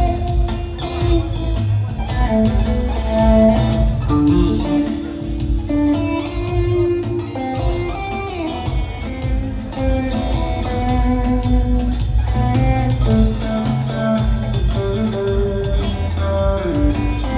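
Live rock trio of electric guitar, bass and drums playing an instrumental passage after the singing has stopped, recorded on a phone in the audience.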